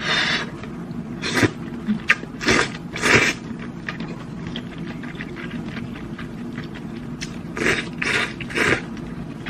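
Slurping sweet potato and rice noodles out of hot and sour soup: four short slurps in the first three and a half seconds, then three more near the end.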